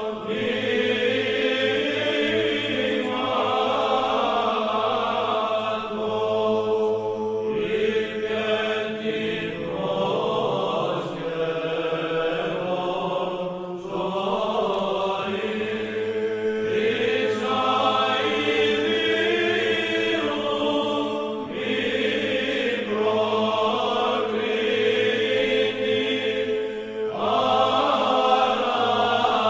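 Background music of chanting voices: a choir holding long notes that shift every few seconds over a steady low drone.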